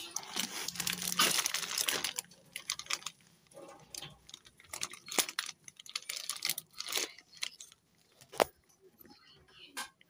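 Clear plastic packaging bag crinkling and rustling as a coiled PVC washing machine inlet hose is handled inside it. The rustle is densest in the first two seconds, then comes in scattered crackles, with a single sharp click a little after eight seconds.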